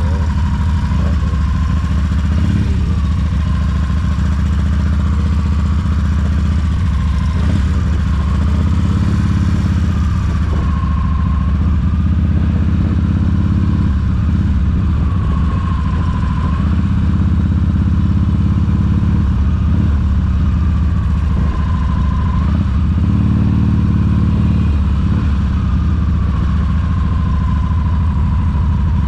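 Cruiser motorcycle engine running steadily while the bike is ridden.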